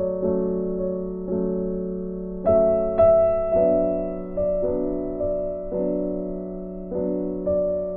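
Background piano music: slow notes and chords, each struck and left to fade, with a louder pair of chords about two and a half and three seconds in.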